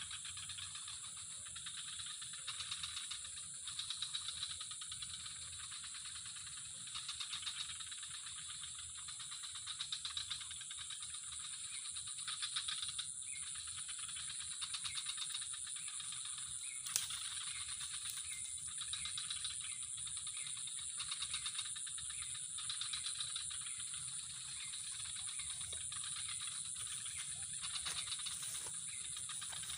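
Insects calling in a steady chorus: a continuous high buzz with a pulsing trill that swells and fades over and over, and a single sharp click partway through.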